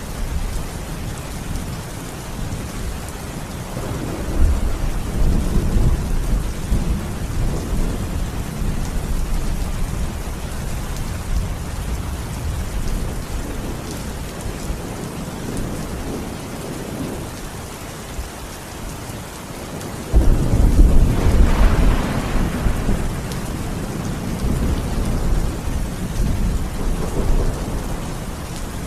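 Steady heavy rain with thunder: a low rumble swells about four seconds in, and a sudden, louder thunderclap breaks about two-thirds of the way through, then rolls off over several seconds.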